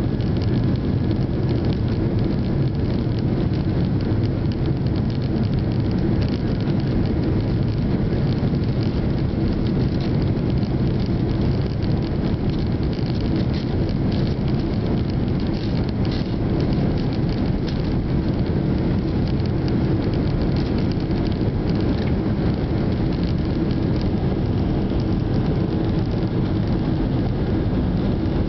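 Jet airliner cabin noise from a window seat beside the engine: steady jet engine noise with low rumble as the plane rolls along the ground, even in level throughout.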